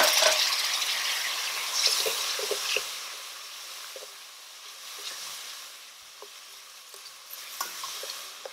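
Curry and oil in a hot stainless steel pot sizzling loudly as water is added, the sizzle dying down over the first few seconds. A silicone spoon stirs the mixture, with light scrapes and knocks against the pot.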